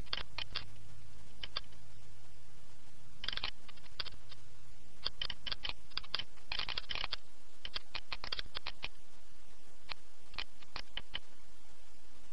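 Computer keyboard keys clicking in short irregular runs of a few strokes each, with a denser flurry of keystrokes around the middle.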